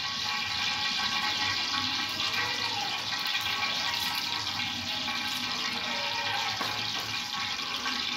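Whole spices for a tempering sizzling steadily in hot coconut oil in a large aluminium pot.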